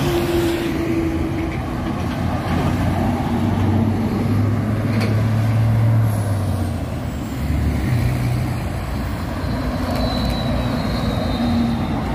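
Heavy diesel trucks and other traffic passing on an expressway: engine drone and tyre noise, with the engine sound strongest in the middle as a truck goes by.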